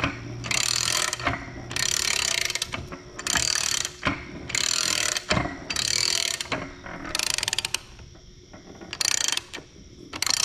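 A hand ratchet being worked in repeated strokes: about eight quick runs of clicking, each just under a second long, with short pauses between.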